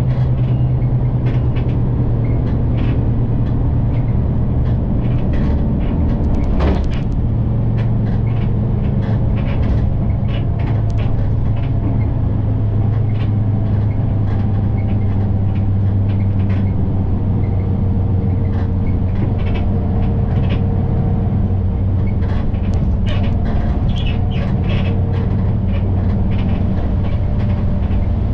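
Inside a moving city bus: a steady low engine drone and road rumble, with frequent small clicks and rattles from the cabin. The engine note shifts slightly lower about seven seconds in.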